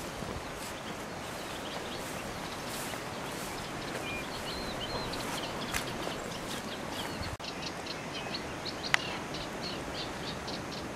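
Outdoor ambience: steady wind noise on the microphone with small birds chirping, the chirps coming in a quick repeating run in the second half. A single sharp click about nine seconds in.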